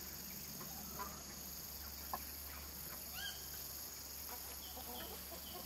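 Domestic chickens clucking and calling faintly in a few short, scattered notes, over a steady high insect drone.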